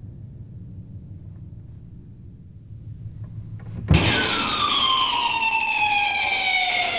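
A low steady hum, then about four seconds in a bass drum thump and a loud electric guitar tone through an effects pedalboard that slides slowly and steadily down in pitch.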